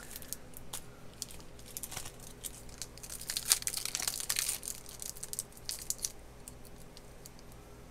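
Foil-lined trading-card pack wrapper being torn open and crinkled by hand, crackling irregularly, busiest about halfway through.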